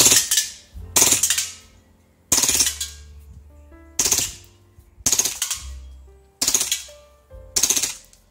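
Action Army AAP-01 gas blowback airsoft pistol firing seven single shots at an uneven pace of about one a second, each a sharp crack that dies away over about half a second.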